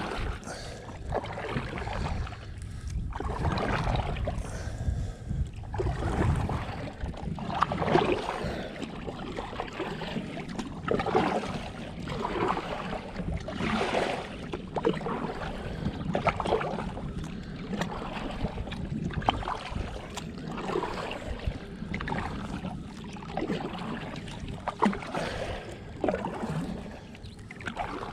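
Kayak paddle strokes dipping and splashing in the water, one swell of splashing every second or two, with water dripping off the paddle.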